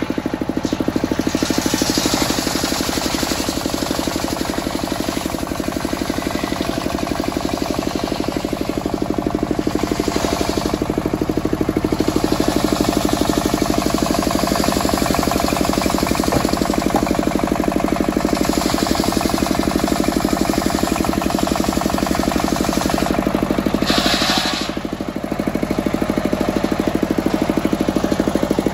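Belt-driven circular sawmill: a single-cylinder stationary diesel engine runs steadily with a rapid, even beat while the large saw blade rips lengthwise through a teak log, its cutting hiss swelling now and then. A brief dip in loudness comes near the end.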